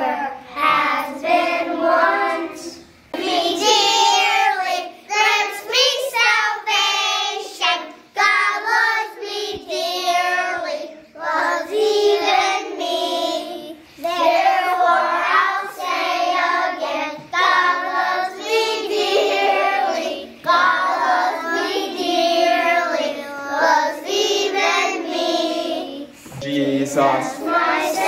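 Kindergarten choir of young children singing together, in sung phrases with short breaks between them.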